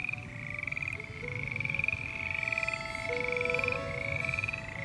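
A chorus of rapid pulsed trills, overlapping and repeating about once a second, each rising slightly in pitch: calling frogs or insects. Steady lower tones sound beneath the trills.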